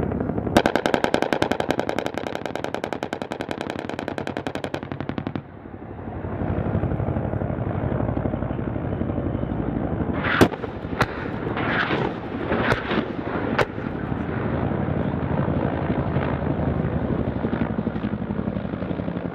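An AH-1Z Viper's M197 20mm three-barrel rotary cannon fires one rapid, sustained burst of about four seconds over the helicopter's steady rotor and engine noise. Between about ten and fourteen seconds in, a handful of sharp cracks stand out over the running helicopter.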